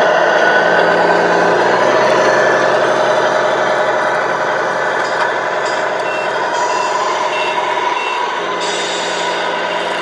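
Sound module of a radio-controlled scale Scania truck playing a steady truck engine running. About two-thirds of the way through, four short reversing-warning beeps sound in a row.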